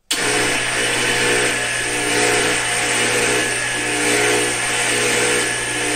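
Electric winch starts abruptly and runs steadily with a motor whine and hum, lowering a heavy battery pack on straps into a car's engine bay.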